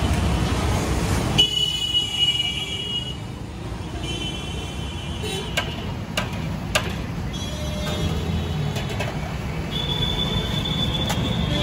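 Roadside frying ambience: puris sizzling in a kadhai of hot oil with traffic passing. A few sharp metal taps come near the middle as the slotted ladle lifts the puris out. High steady tones come and go over the top.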